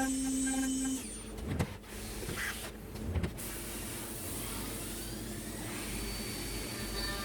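Hurco BX40i CNC milling machine running, with two clunks in the first few seconds, then a faint rising whine and a steady high tone near the end.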